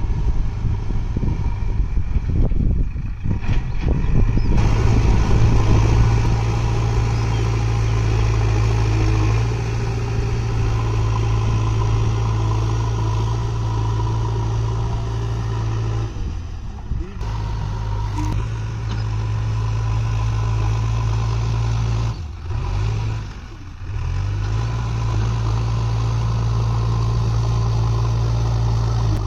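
JCB backhoe loader's diesel engine running steadily, a continuous low drone that drops away briefly a few times.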